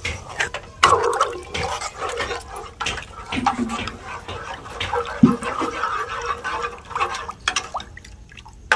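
Steel ladle stirring watery arbi (taro) curry in a metal kadhai: the liquid sloshes, and the ladle clinks and scrapes against the pan at irregular intervals.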